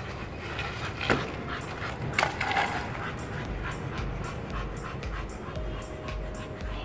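A pit bull-type dog panting rapidly and evenly, about three to four breaths a second. There are two sharp knocks about one and two seconds in.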